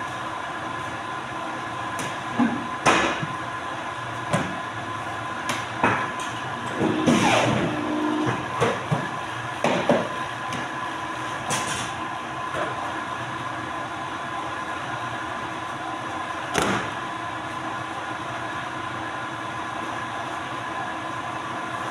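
Polar 115 guillotine paper cutter running with a steady hum. A handful of sharp knocks and a scraping slide come over it as paper stacks are shoved along and squared on its table.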